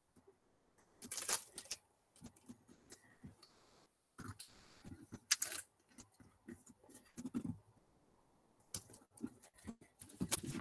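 Faint, irregular clicks, taps and rustles of hands handling a small self-adhesive craft piece and sticking it onto a prop on the workbench.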